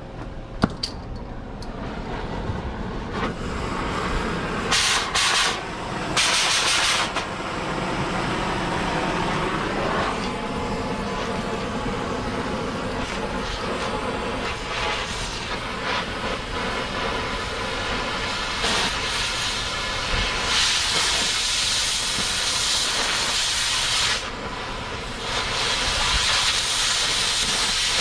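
Oxy-fuel cutting torch hissing steadily, louder and sharper in stretches in the second half as it cuts into the steel of an excavator boom.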